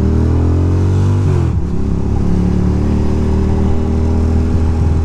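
2006 Ducati Monster 620's air-cooled L-twin engine accelerating, its pitch rising, then dropping briefly with a gear change about a second and a half in before pulling on steadily.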